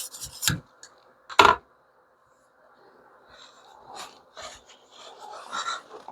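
The last rasping stroke of a coarse 220-grit stone across a knife edge on a fixed-angle sharpener ends, followed by two hard knocks, the second louder. Faint clicks and rubbing of handling the sharpener come in the last couple of seconds.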